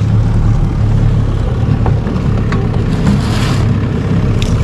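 Small boat's motor idling with a steady low hum. A brief rushing noise comes about three seconds in.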